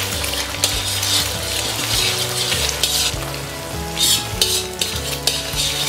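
Eggs sizzling in hot lard in a wok, stirred and scraped with a metal spatula, with a run of louder scrapes about four seconds in.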